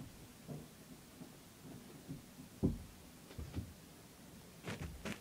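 Scattered low thuds and knocks of a person moving about and returning to the room, with a cluster of sharper clicks near the end.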